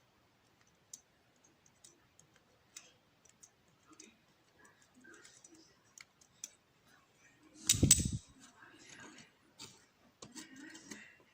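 Light metallic clicks and ticks of a Ruko pin-tumbler lock cylinder and small steel parts being handled and worked with tools, with one louder knock about eight seconds in.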